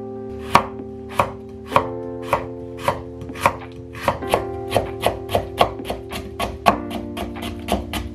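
Knife cutting vegetables on a cutting board in steady strokes, about two a second at first and speeding up to roughly three a second about four seconds in. Light guitar background music plays underneath.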